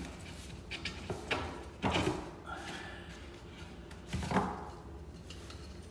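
Click-lock floor planks being handled and fitted over foam underlayment: a handful of sharp knocks and thuds, the loudest about two seconds in and another just past four seconds, with light rustling between them.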